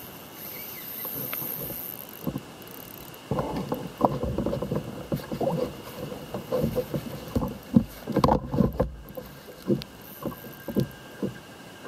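Irregular knocks, bumps and rattles on a fishing kayak's hull and deck fittings as the angler shifts his weight and reaches over the side. The knocking grows busy and louder about three seconds in, with the heaviest bumps around eight seconds in.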